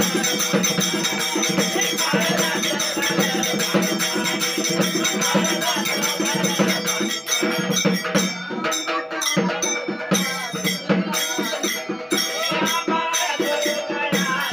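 A Marathi devotional song sung by a group, accompanied by a hand drum and rattling percussion keeping a steady rhythm. The beat thins out a little about halfway through, then carries on.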